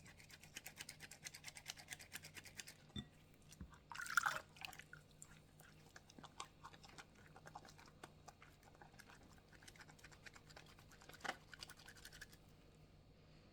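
Wet hands rubbing a bar of handmade cold-process soap into a lather: a faint, fast, squishy scrubbing, busiest for the first few seconds and then lighter, with one louder brief burst about four seconds in.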